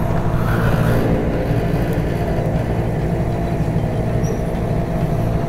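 Engine idling close by: a steady low throb.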